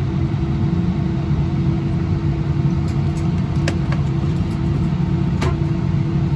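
Steady low rumble with a constant hum inside an Airbus A319's cabin at the gate, with two sharp clicks, one about midway and one near the end.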